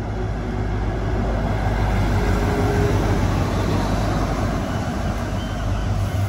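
Train passing close by: a steady low engine drone under wheel and rail noise, growing louder over the first few seconds.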